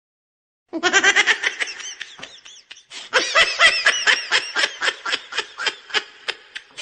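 Loud, rapid laughter in quick repeated bursts, starting about a second in, dropping off briefly, then picking up again louder around three seconds in.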